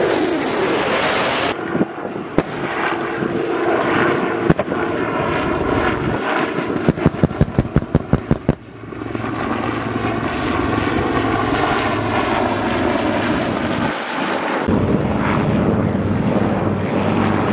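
A fighter jet's engine rush at the start gives way to sharp bangs and then a quick run of about ten loud cracks, some five a second, from the battle-demonstration pyrotechnics. After that, military helicopters run steadily, their turbines and rotors giving a low, even hum.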